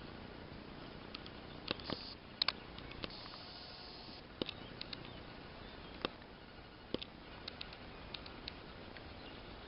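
Spring forest ambience: faint irregular clicks and crackles scattered through it, with a short high hiss around the second mark and another lasting about a second just after the three-second mark.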